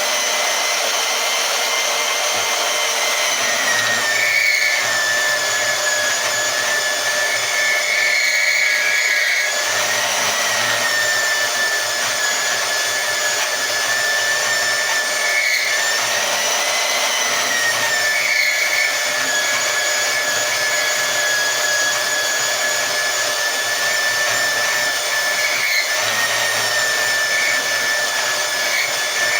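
Harbor Freight portable band saw running steadily with a high, slightly wavering whine as its blade cuts through rebar. The saw is straining on the thick bar but getting through it.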